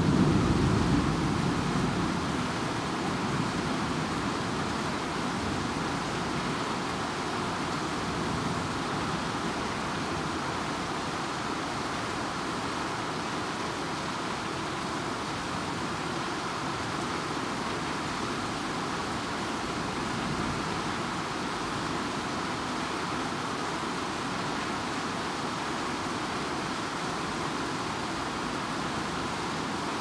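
Steady rain, an even hiss. A low rumble of thunder dies away in the first few seconds.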